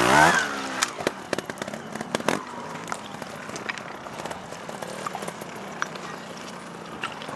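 Trials motorcycle engine revving hard, its pitch falling away within about half a second, then running on fainter and steady, with scattered sharp clicks.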